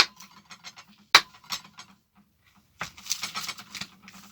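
Cutlery and crockery clinking in a small kitchen: a few sharp clinks, then about a second of quick rattling and clattering near the end.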